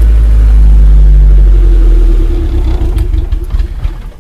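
Suzuki Samurai's carbureted 1.3-litre four-cylinder engine running just after a cold start, loud at first and then settling quieter after about two seconds. It caught on the key without choke or pumping the gas, which the owner puts down to the HHO gas fed into the carburetor.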